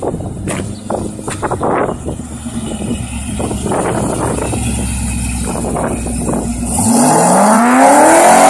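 Supercharged C5 Corvette V8, running with a Borla S-Type exhaust and no catalytic converters, idles for several seconds. About seven seconds in it revs hard, its pitch climbing steeply and getting louder as the car pulls away.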